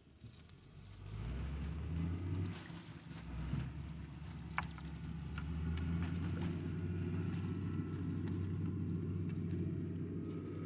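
A motor engine running with a low, steady rumble that comes in about a second in, with a few sharp clicks over it.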